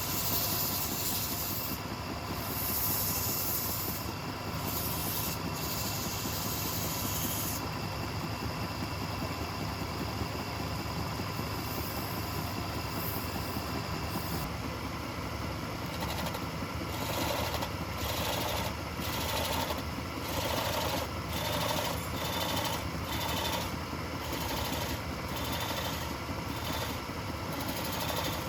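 Wood lathe running with a steady mechanical hum. From about halfway through, a regular pulsing comes in about once a second.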